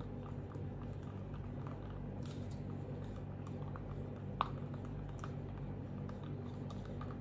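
Wooden stir stick scraping and clicking against a plastic cup as acrylic paint is mixed with water, in small irregular ticks with one sharper click about four seconds in. A steady low hum runs underneath.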